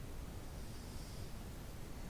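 A lull between snores: only a faint, even hiss with a low rumble.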